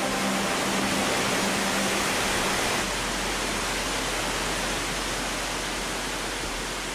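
Steady rushing of a large waterfall cascading down a steep rock face, taking on a deeper rumble about three seconds in.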